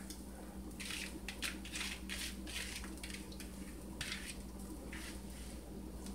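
Soft, irregular rustling and pattering of sautéed onion and green pepper slices sliding out of a colander and dropping into a slow cooker crock, over a low steady hum.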